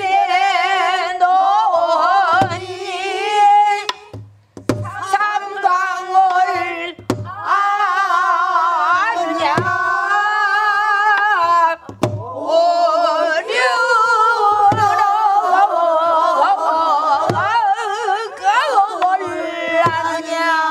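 A woman singing a long, drawn-out pansori phrase with wide vibrato. Buk barrel drums struck with a stick keep time, one stroke about every two and a half seconds.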